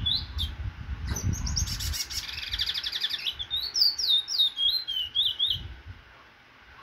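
Cage-bred Trinidad bullfinch (chestnut-bellied seed finch) singing a fast, varied song of high chirps and a buzzy trill, then a run of falling whistled notes. The song stops a second before the end.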